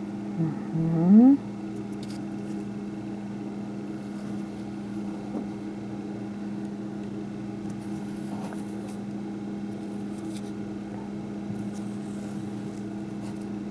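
A steady low electrical-sounding hum in a small room, with a short rising tone about half a second in.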